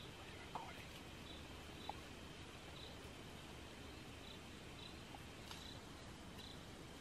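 Faint insect chirping: a short high chirp repeating evenly, a bit more than once a second, over a low steady hiss, with a couple of soft clicks near the start.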